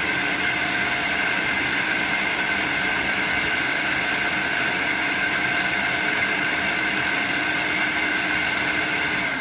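Electric food processor running steadily, its motor and blade whining evenly as it blends whipped cream with crushed garlic until thick.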